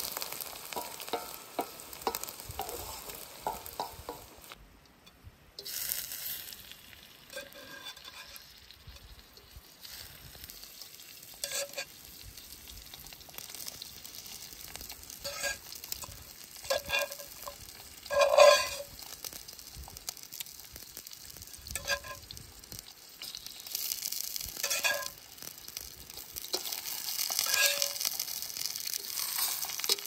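Onions and mushrooms sizzling in a hot steel wok over a wood fire, with quick scraping strokes of a wooden spatula stirring them. Later, whole raw quails are put into the pan one after another, each with a sharp knock against the steel and a fresh sizzle, the frying growing louder near the end.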